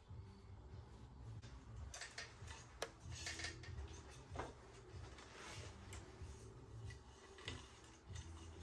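Faint clicks and short rubbing sounds of cable housings and wires being handled and fed through a bicycle bar-stem combo into the frame's head tube, with the sharpest click about three seconds in, over a low steady hum.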